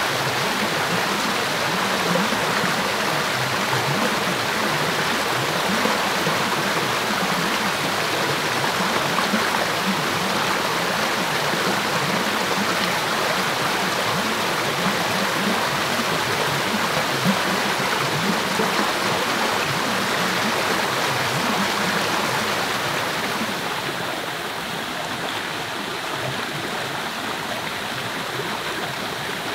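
Small rocky forest stream rushing over boulders in a steady cascade. About three-quarters of the way through it becomes a little softer and duller.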